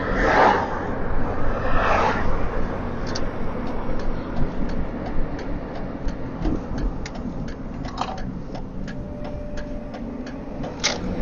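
Steady car road and engine rumble inside the cabin, with two short sniffs in the first couple of seconds. Then a turn signal clicks evenly at about two to three ticks a second for several seconds.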